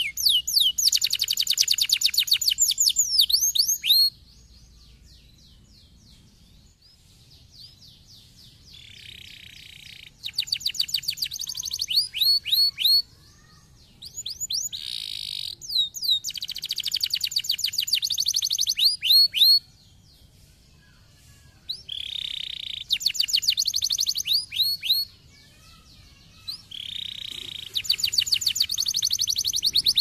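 Domestic canary singing: phrases of rapid trills of repeated sweeping notes, with short harsh buzzy notes mixed in, broken by pauses of a few seconds between phrases.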